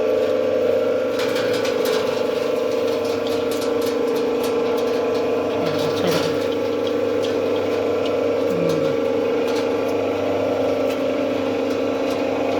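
Five-inch soap plodder running under load on very hard soap stock: a steady machine hum with scattered light clicks.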